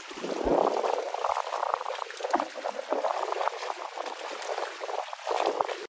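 Water sloshing and splashing, an uneven rushing with many small irregular splashes, cutting off suddenly at the end.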